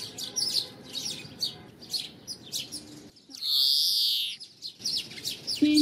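European greenfinch singing: quick twittering chirps, then about halfway through a single loud, drawn-out buzzy wheeze lasting about a second and a half.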